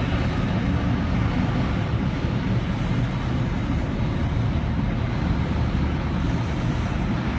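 Steady low rumble of a car driving in slow traffic, heard from inside the cabin: engine and tyre noise.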